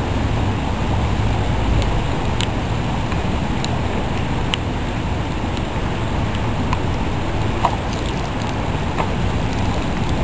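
Steady outdoor rushing noise in the rain, heaviest in the low end, with a few scattered sharp ticks like drops striking close to the microphone.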